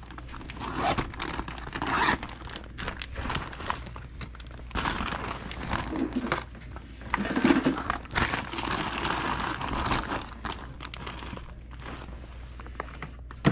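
Clear plastic bag crinkling and rustling in irregular bursts as items are handled, with scattered small knocks.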